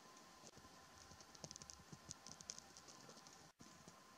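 Near silence: faint hiss and a faint steady hum, with a brief patch of light, quick ticks and crackles near the middle.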